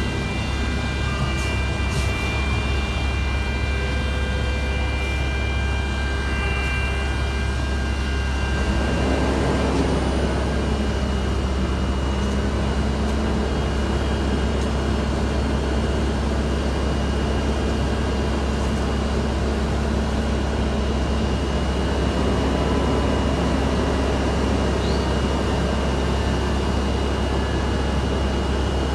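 Diesel engines of heavy asphalt-paving equipment running steadily, with a low drone and a high whine. About nine seconds in the mix changes as another engine note rises briefly and then holds steady.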